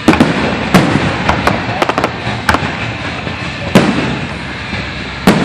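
Aerial fireworks shells bursting: about ten sharp bangs and cracks, with a quick cluster around two seconds in and strong bangs at the start and near the end.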